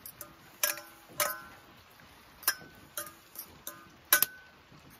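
A metal fork clinking against a stainless steel saucepan while stirring cooked stinging nettles: about eight sharp, irregular clinks, several with a brief metallic ring after them.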